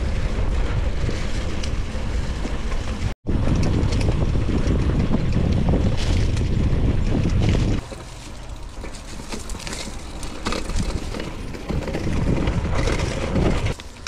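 Wind buffeting the microphone of a camera riding on a moving mountain bike, with the bike rattling and its tyres rolling over a rough, leaf-strewn dirt trail. The noise cuts out for an instant about three seconds in and eases off from about eight seconds in, then rises again briefly near the end.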